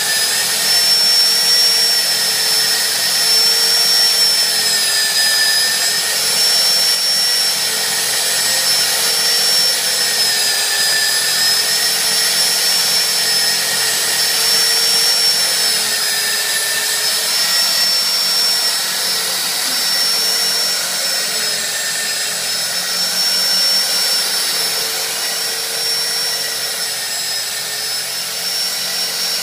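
ISD 323 split-frame pipe cutting and beveling machine running under load: its drive motor gives a steady whine over a hiss while the heavy tool post cuts the pipe wall and turns off curled metal chips. The pitch dips slightly every few seconds.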